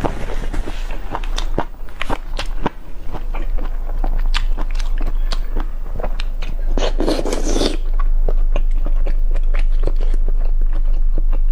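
Close-miked eating: biting and chewing with many sharp, moist clicks, and a louder crunchy burst about seven seconds in.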